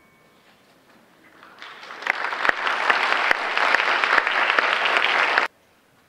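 Audience applauding a concert band at the end of a piece: the last faint ring of the final chord, then clapping that starts about a second in, swells quickly to full, and cuts off suddenly near the end.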